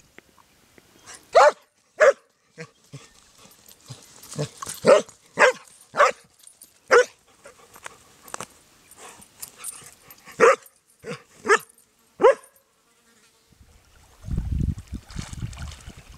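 A dog barking: a dozen or so short, sharp barks at irregular intervals, then the barking stops. A low rushing noise comes in near the end.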